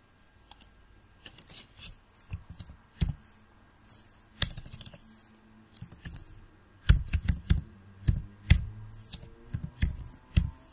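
Computer keyboard and mouse clicks: scattered clicks at first, then a quick run of keystrokes in the second half as text is typed.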